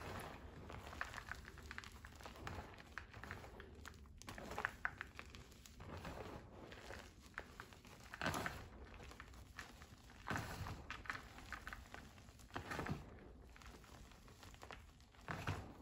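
Hands squeezing and crumbling powdery reformed gym chalk in a bowl: soft, uneven crunching and crumbling, with a louder crunch every couple of seconds as a handful is squeezed.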